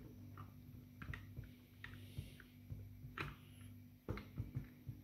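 Light clicks and knocks of plastic parts being handled and pushed into place on a Nerf Rival Roundhouse blaster, a sharper click about three seconds in.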